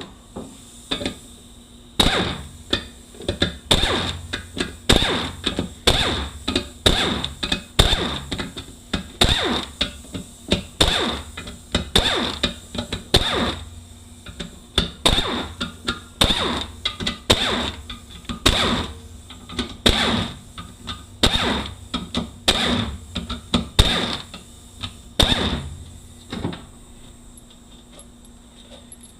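Repeated hammer blows on metal at a 6L80 automatic transmission during teardown, sharp and unevenly spaced at about one or two a second, starting about two seconds in and stopping a few seconds before the end.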